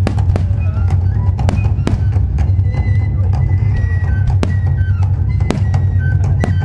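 Aerial firework shells bursting in quick succession, sharp bangs about two a second, over music with a steady heavy bass.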